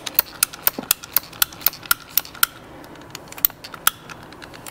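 Hand-held golf-ball cutter clicking as its handle is squeezed, working the blade through a golf ball: a quick run of sharp clicks, about four a second, thinning to a few scattered clicks after about two and a half seconds.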